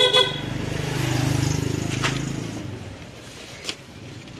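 A sharp ringing clink, then a motor vehicle engine passing on the street, swelling and fading over about two seconds, with a few small knocks of handling after it.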